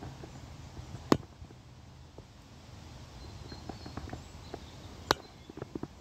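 Low steady outdoor rush under two sharp clicks, about a second in and near the end, with a few softer ticks between and after them.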